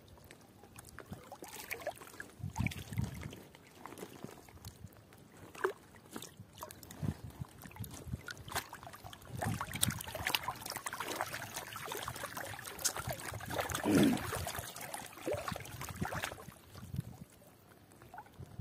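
Water trickling and splashing as a fishing net's line and float are pulled up by hand from the water, with irregular small splashes and drips that grow busier in the middle.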